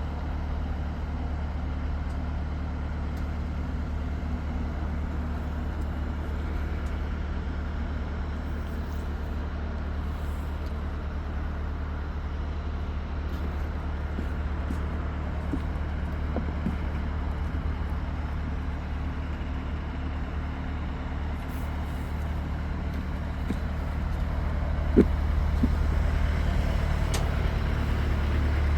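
Steady low mechanical drone, like an engine or motor running at idle, with a single sharp knock about 25 seconds in and the drone growing a little louder near the end.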